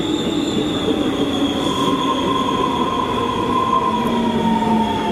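Electric subway train running into a station and slowing: a steady rumble of wheels on rail with a high motor whine that slowly drops in pitch.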